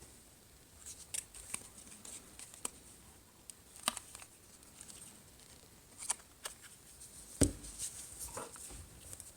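Small irregular clicks and scratches of a plastic card and hobby knife prying cracked glass off a Samsung Galaxy S4's screen, with one sharper knock about seven and a half seconds in.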